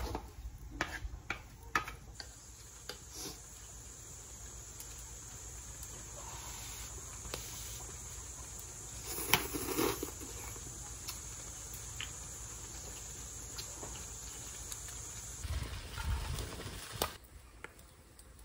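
Light clicks and taps of a metal ladle and chopsticks on a wok over a steady high hiss, with a short breathy puff about nine seconds in as hot noodles are blown on. A few dull knocks follow near the end.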